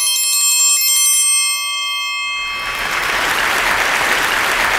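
A bright bell-like chime sound effect rings and dies away. A little past halfway it gives way to a burst of applause.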